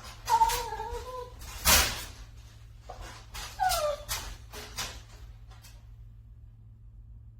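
A dog whining in two short, high, falling cries, among several sharp knocks; the loudest knock comes a little under two seconds in.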